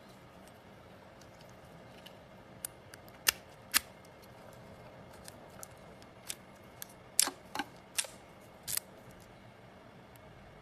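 A series of sharp, irregular clicks and taps, some faint and a few louder ones in a pair about a third of the way in and a cluster about two thirds in.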